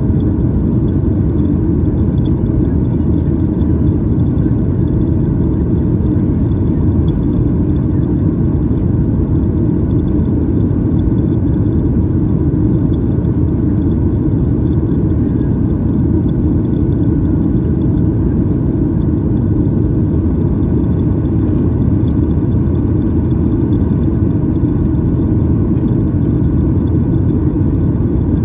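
Steady low roar inside the cabin of a Boeing 737-800 in its climb: the CFM56-7B engines and the rush of air over the fuselage, with a faint, steady high whine.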